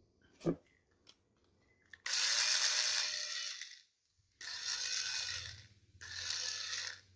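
A small tool working on a plastic game joypad as it is taken apart: three rasping mechanical bursts, the first about a second and a half long and the others a little shorter, after a small click about half a second in.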